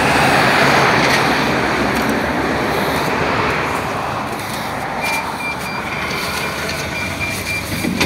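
Street traffic and a minibus engine running, a loud rush of noise in the first couple of seconds that eases off, then a high, rapid electronic beeping from about five seconds in. A sharp knock comes right at the end.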